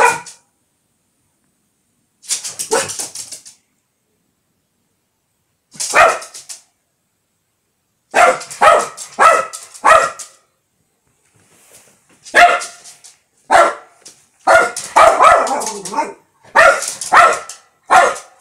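A small Lhasa Apso barking at a fly, in single barks and quick runs of three or four with pauses between, and a longer burst of barking near the end.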